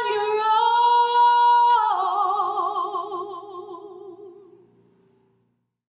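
A woman's trained solo singing voice holds a high final note, then steps down to a lower note sung with wide vibrato that fades away about five seconds in, ending the song.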